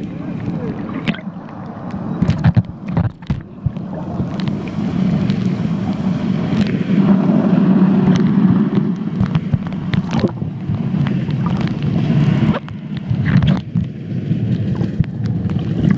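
Muffled underwater noise as heard by a submerged camera: a steady low rumble of moving water, with scattered sharp clicks and knocks throughout.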